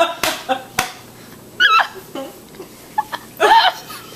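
A small group laughing, with a couple of sharp slaps in the first second. Two short high-pitched voice sounds follow, one around the middle and one near the end.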